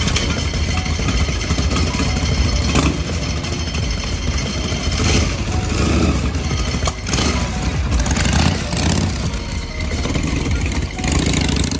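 Harley-Davidson V-twin motorcycles running with a deep rumble, the throttle blipped now and then, and the bikes pulling away near the end.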